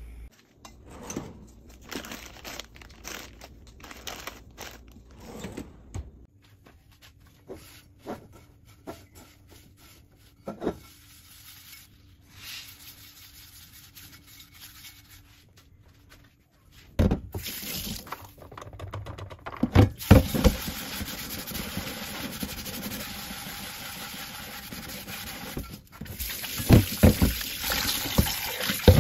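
Light scrapes and clicks as a cloth wipes out a cast iron pot. A little over halfway through, a tap starts running steadily into a stainless steel sink while the pot is scrubbed under it, with a few loud knocks of the pot against the sink.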